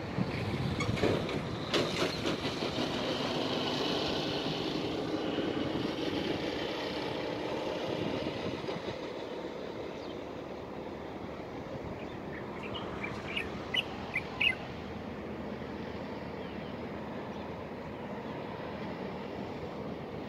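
A vehicle passes, a broad rush of noise that swells and slowly drops in pitch over the first eight seconds or so, then fades to a steady outdoor hiss. About thirteen seconds in, a bird gives a few short, high chirps.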